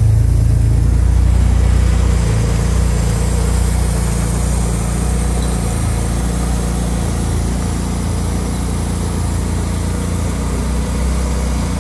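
Toyota AE92 Corolla's 4A-GE/7A-GE four-cylinder engine running at a steady idle. It is loudest at first and a little quieter after about two seconds.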